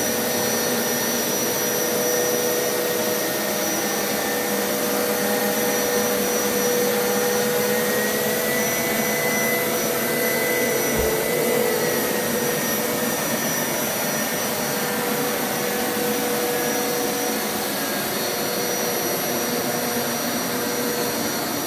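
Hoover Power Scrub Elite carpet washer running steadily on its deep-clean wash setting, a continuous whine of its suction motor with its rotating scrub brushes, the pitch shifting a little near the middle as it is pushed and pulled over the carpet.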